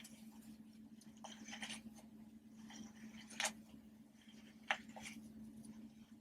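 Animal-shaped popper fidget toys being pressed, giving irregular soft pops and clicks, with sharper pops about three and a half and about four and a half seconds in, over a steady low hum.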